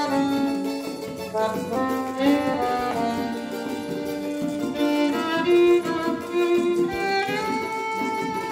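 Instrumental passage played by a small acoustic ensemble: a violin carries the melody over acoustic guitar, a small plucked string instrument and accordion.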